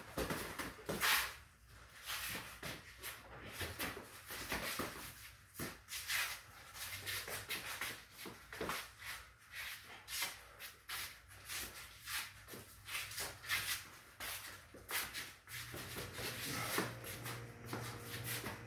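Kickboxing sparring: irregular thuds of gloved punches and shin-guarded kicks landing, mixed with feet shuffling and scuffing on a concrete garage floor. A faint steady low hum comes in near the end.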